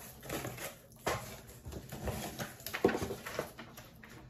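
Rustling and handling of a just-cut-open shipping box and its packing, in uneven noisy bursts with no steady rhythm.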